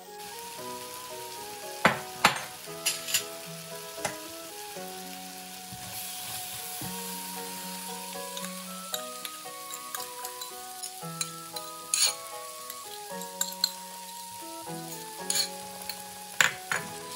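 Onion and tomato masala sizzling in a frying pan, with a series of sharp clicks and knocks as a spoon and spatula hit the pan and bowl while yogurt is added and stirred in. Soft background music with sustained notes plays underneath.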